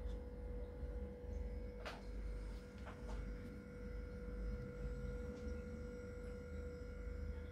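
A steady hum over low rumbling, with a few faint clicks about two and three seconds in.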